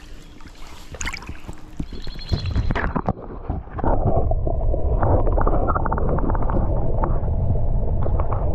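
Stream water splashing at the surface, then, about three seconds in, the muffled, rushing noise of the canal's current heard with the microphone underwater, all the high sounds cut away.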